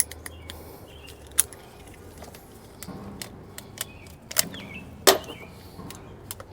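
Metal hand tools clinking and clicking as a 3/8 socket or wrench is picked out, with a few sharp metal clicks, the loudest about five seconds in.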